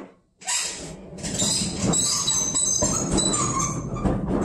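Refrigerator rolling on its wheels as it is pulled out and turned across a tile floor, a steady rumbling scrape with many short high squeaks.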